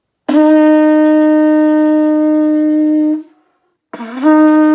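A conch shell blown as a horn: one long steady note of about three seconds, then, near the end, a second blast that slides up briefly before settling on the same pitch.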